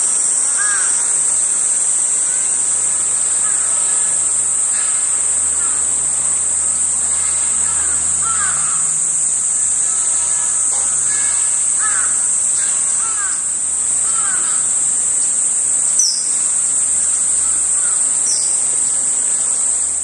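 A steady, high-pitched chorus of insects with no break, with scattered faint bird calls through it and two short, high falling notes near the end.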